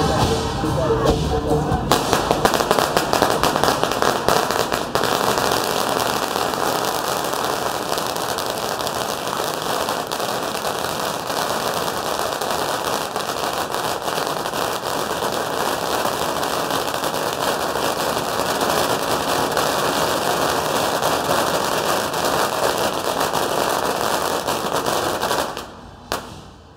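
A long string of firecrackers going off in a rapid, continuous crackle that stops sharply about a second before the end.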